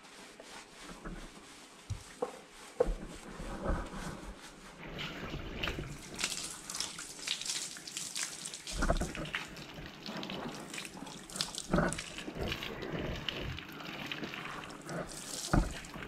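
Water running and splashing on a tiled floor while hands scrub a golden retriever's soapy, wet coat, with many short irregular splashes; it is quiet at first and louder from about two seconds in.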